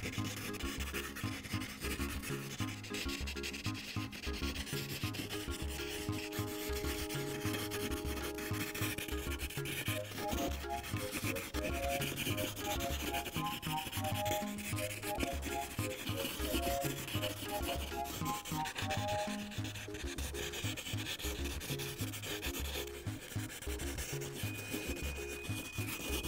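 Prismacolor colored pencil scratching back and forth across paper as fur is shaded in, over soft background music with a steady low beat and a short melody in the middle.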